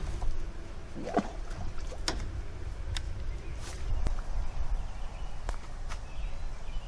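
Fishing rod and reel being handled: a handful of short clicks and taps over a steady low rumble.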